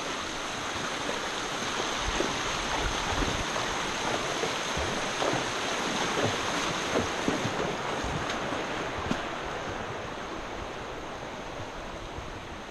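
Shallow creek water rushing over rocks, with horses' hooves splashing and knocking as they wade through it. The rush of water fades near the end as the horses climb out onto dry trail.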